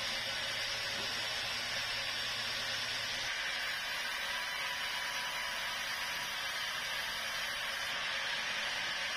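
Sawmill saw running steadily through a meranti log, an even hissing machine noise with a faint low hum that stops about three seconds in.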